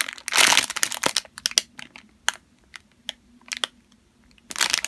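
Clear plastic packaging bag crinkling as it is handled: a loud rustle at the start and again near the end, with scattered small crackles in between.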